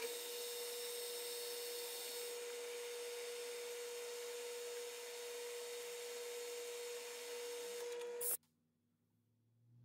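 Metal lathe running with a steady whine while a cutting tool feeds into a spinning brass bushing and throws off chips. The sound stops abruptly a little after eight seconds, leaving near silence.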